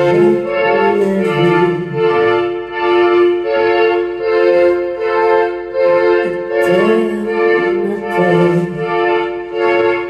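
Live rock band playing with electric guitars, bass and drums: a steady held chord sounds over a bass line that moves up and down.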